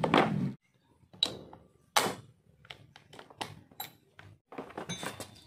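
A masonry bit being pushed into the SDS chuck of a RYU RRH26 rotary hammer and locking in: two sharp clicks about a second apart, then lighter knocks and taps as the tool is handled. The motor is not running.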